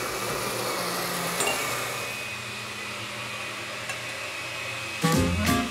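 Countertop blender running steadily, blending a fruit smoothie; the hum drops in level about two seconds in. Upbeat swing music starts near the end.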